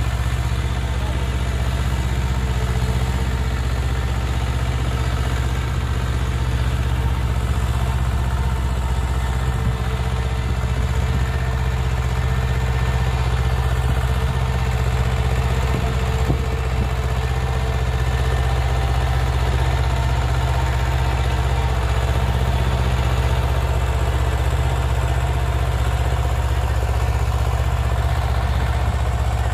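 Swaraj 724 FE tractor's two-cylinder diesel engine running steadily under load while pulling a cultivator through the soil.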